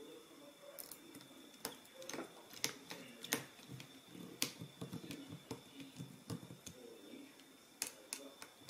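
Small screwdriver driving tiny screws into the plastic display frame of a ThinkPad L440 lid: irregular faint clicks and ticks of the tip and screw, with rustling of hands on the panel.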